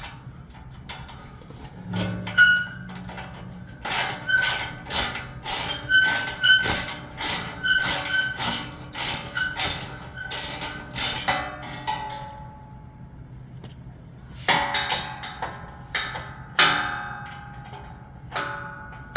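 A 3/8-inch ratchet on a long extension clicking steadily, about two to three clicks a second with a slight metallic ring, as it turns the skid plate's 12 mm hex bolts. Near the end come a few louder metal clanks and rattles.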